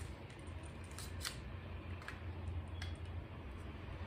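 A few light plastic clicks and scrapes as a BB pistol's plastic magazine is pushed against the magazine well and fails to seat, because it is being inserted the wrong way round.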